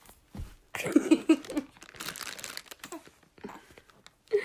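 A baby giggling in a quick run of short bursts, with crinkling and rustling as a plush toy is rubbed against the baby.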